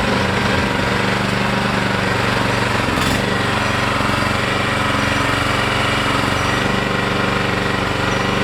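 Small excavator's engine running steadily at a constant speed.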